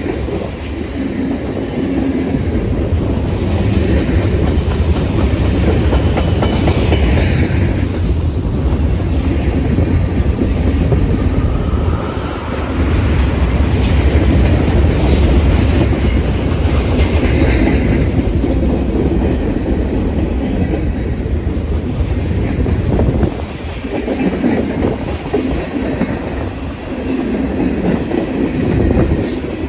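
A train rolling past with a steady low rumble, its wheels clattering over the rail joints.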